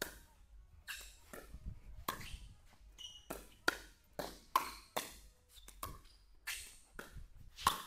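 Pickleball paddles hitting a plastic pickleball in a fast rally at the net: a quick run of sharp pops, about two a second, each with a short echo.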